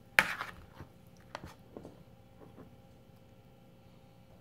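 A metal spoon clinks against a metal pie pan while scooping apple pie filling: one sharp clink just after the start, then a few faint taps.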